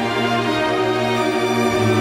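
Instrumental background music with long held notes over a low bass line that changes note near the end.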